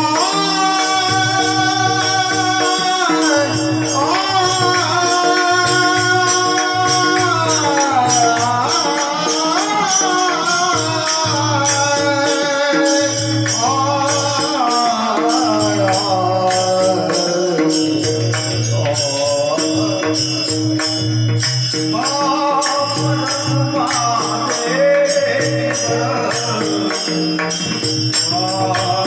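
Marathi devotional bhajan music: a long, gliding sung melody over a held drone. Jingling hand cymbals keep a fast steady beat, with a pulsing drum underneath.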